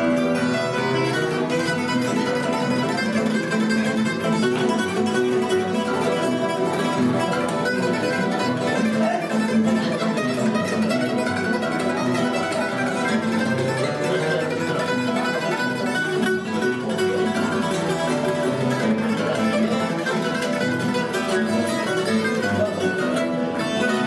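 Fado played on a Portuguese guitar, picking a bright, quick melody, over a classical Spanish guitar plucking the chords beneath it.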